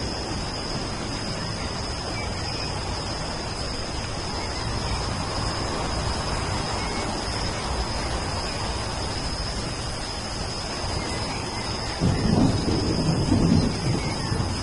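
Steady rain, with a low rumble of thunder about twelve seconds in that lasts a couple of seconds.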